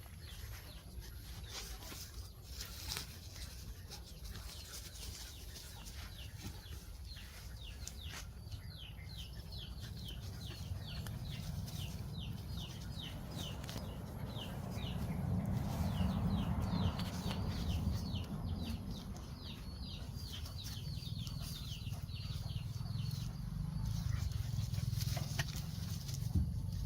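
Chickens calling: a long run of short high chirps, about three a second, through the middle stretch, over a steady low rumble.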